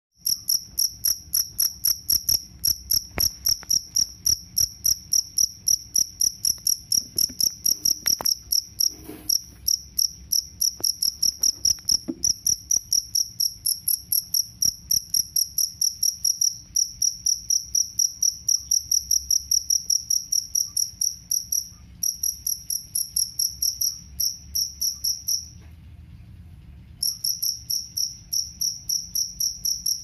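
Male two-spotted field cricket (jangkrik kalung) singing, rubbing its raised forewings together: a steady, high-pitched chirping at about three chirps a second, breaking off for about a second near the end before starting again.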